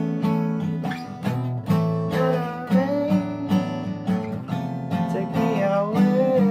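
Fingerstyle acoustic guitar playing a repeating chord pattern, joined from about two seconds in by a wavering melody line sung without words.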